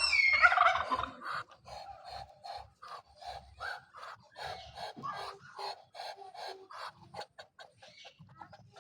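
A bird calling: one loud squawk with falling pitch at the start, then a long run of short calls, about three a second. The calls come from a bird shown as angry.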